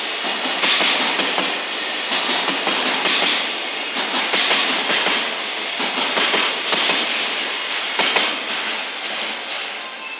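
Container flatcars of a freight train rolling past, with a repeating clatter of wheels over the rail joints. The sound eases off near the end as the last wagon goes by.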